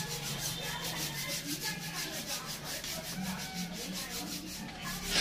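Hand scrubbing on a motorcycle's frame during washing: quick, even back-and-forth rubbing strokes in a steady rhythm.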